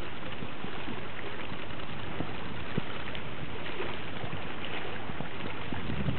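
Steady rushing of wind and sea water, an even noise with a few faint ticks.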